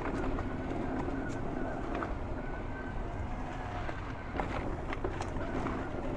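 Electric mountain bike rolling along a dirt trail: tyre and wind rumble with scattered clicks and rattles from the bike over the ground, and a faint steady whine from the motor.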